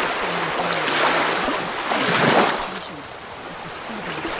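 Ocean waves washing ashore, one wave swelling to its loudest about two seconds in and then drawing back.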